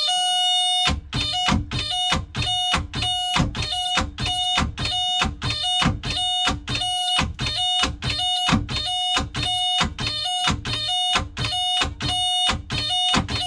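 Inboard boat engine turning over slowly on its starter in heavy, labouring strokes about twice a second as the seized engine is forced round. With each stroke the boat's warning buzzer sounds in a short beep, after a steady buzzer tone in the first second before cranking starts.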